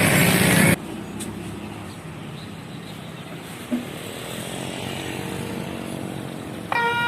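A close road vehicle's engine cuts off abruptly less than a second in, leaving quieter traffic hum. Near the end, the railway level crossing's newly replaced electronic warning siren starts suddenly on a steady tone.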